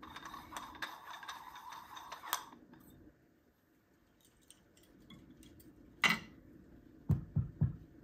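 WDT needle tool stirring ground coffee in a metal espresso filter basket: a fast, dense scratchy ticking for about two and a half seconds. Later a single sharp clink about six seconds in and three dull knocks near the end as the coffee tools are handled on the table.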